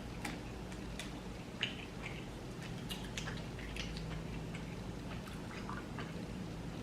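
Close-miked chewing of chewy, sticky rice cakes (tteokbokki): scattered soft mouth clicks and smacks over a faint steady hum.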